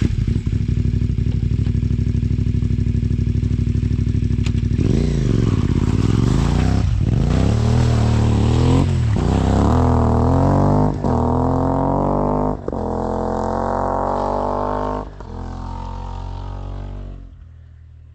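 CFMOTO 450MT motorcycle's parallel-twin engine running at a steady idle for about five seconds. It then pulls away and accelerates through the gears: the pitch climbs and drops back at each of about five shifts, and the sound fades out near the end.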